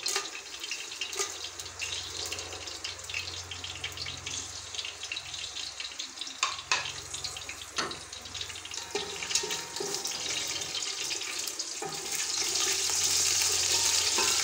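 Whole spices (cumin seeds, black peppercorns, cloves, bay leaves, cinnamon) sizzling and crackling in hot oil in a pot, with a few sharp clicks as they are stirred. The sizzle grows louder about twelve seconds in.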